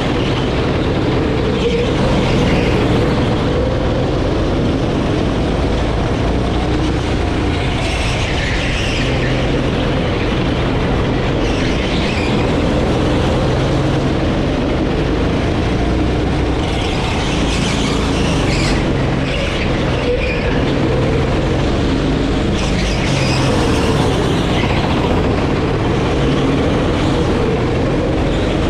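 Engine of a Sodi rental kart heard from on board, running hard as the kart laps, its pitch rising and falling with the throttle through the corners.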